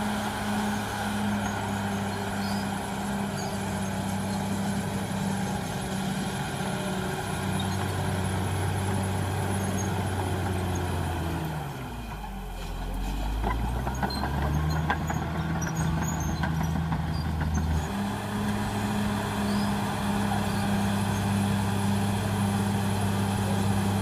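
Caterpillar D6R XL bulldozer's diesel engine running steadily under load. About halfway through, its pitch sinks for a second or two and then climbs back, with a spell of clanks and knocks just after.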